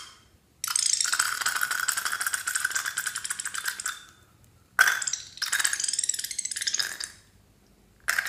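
A short snip of scissors cutting a slime-filled balloon. Then thick slime squeezes out of the balloon into a glass dish with a rapid crackling sputter. The sputter comes in two long stretches, each beginning with a sharp onset, and a brief burst follows near the end.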